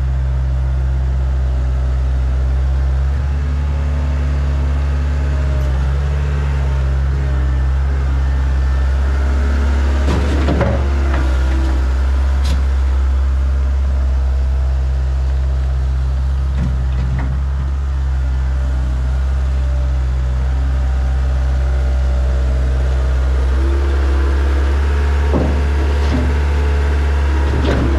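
Skid steer engine running steadily at constant speed under work, with a few short clanks and scrapes about ten seconds in, again around seventeen seconds, and near the end.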